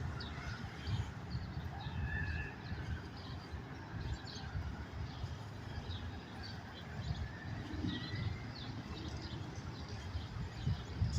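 Birds chirping with short, scattered calls and a few brief whistles, over a steady low rumble.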